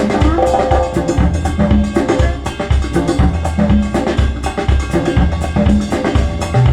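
Recorded music with a drum kit and bass playing at a steady beat through Bowers & Wilkins 803 D4 floor-standing loudspeakers driven by a Marantz MODEL 10 amplifier.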